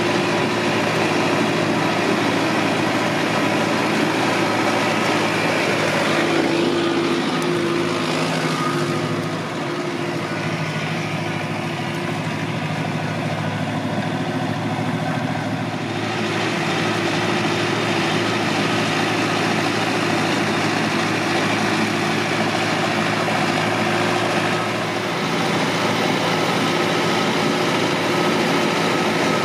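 Zetor Forterra 130 HSX tractor's diesel engine running steadily while pulling a reversible plough through the soil, its note dipping slightly a few times.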